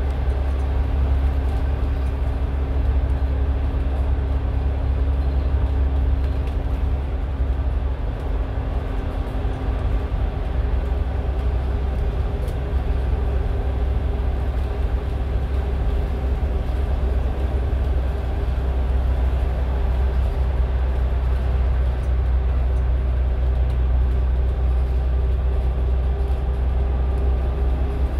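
Steady low drone of a bus's engine and road rumble heard from inside the cabin as it cruises at an even speed, with a few constant hum tones over the rumble.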